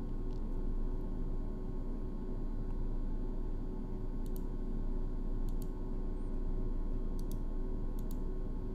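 Computer mouse clicking about five times, each click a quick pair of ticks (button press and release), over a steady low hum.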